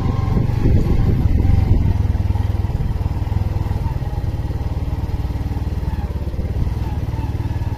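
Motorcycle engine running steadily at an even speed while riding along a rough dirt road.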